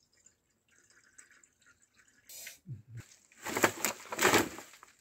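Water splashing and dripping: faint drips at first, then a run of loud, noisy splashes from about three seconds in.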